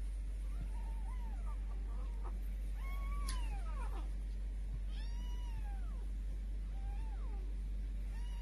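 Grey Korat kitten meowing, a string of about six short meows that each rise and fall in pitch, the loudest a little after three seconds in.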